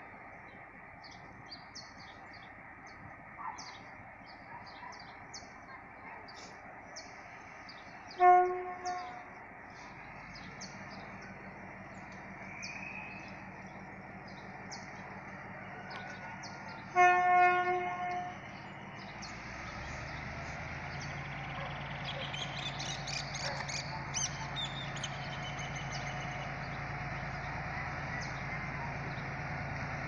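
GM G22 diesel-electric locomotive pulling out, sounding its horn twice: a short blast about eight seconds in and a longer one around seventeen seconds. Its diesel engine drones underneath, coming up after the first blast and growing louder from about nineteen seconds as it throttles up. Birds chirp in the first part.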